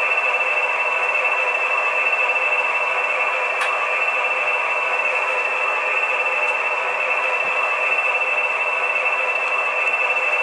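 Sound decoder in an H0 model SU42 diesel locomotive playing a steady diesel-engine idle through the model's small onboard loudspeaker.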